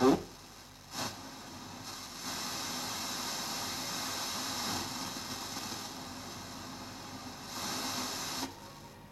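FM tuner of a 1979 Rotel RX-304 stereo receiver being tuned between stations: hiss and static from about a second in, stronger from about two seconds, falling away near the end.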